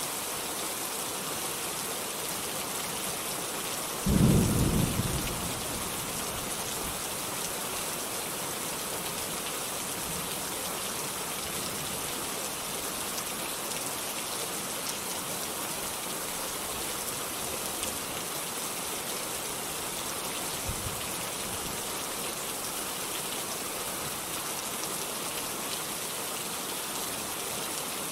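Steady rain, with a single thunderclap about four seconds in that rumbles away over a second or so, and a faint low thump of distant thunder near the end.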